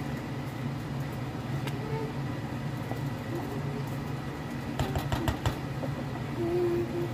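A wooden spoon stirring a stainless-steel pot of thick, starch-thickened rice pudding as it comes to the boil, with a low steady rumble under it. A few sharp clicks of the spoon against the pot come about five seconds in.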